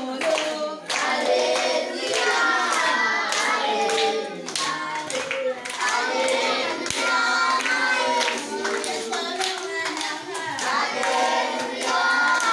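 A group of children and young people singing a grace before a meal together, clapping their hands along with the song.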